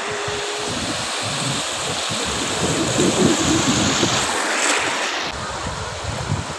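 Sea surf washing in over a shallow beach, a steady rushing hiss that swells about three seconds in and eases off a couple of seconds later, with wind buffeting the microphone.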